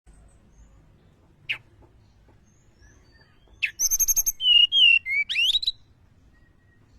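Tledekan gunung songbird singing: a single sharp chirp, then a quick phrase of high whistled notes, a fast trill and rising sweeps lasting about two seconds.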